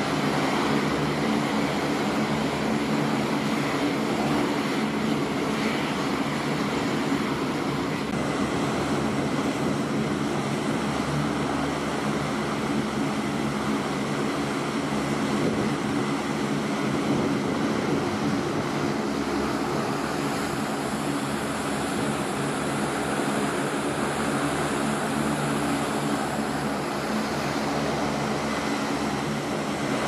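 A C-130J Super Hercules's Rolls-Royce AE 2100 turboprop engines running steadily with propellers turning on the ground, a constant propeller drone and hum.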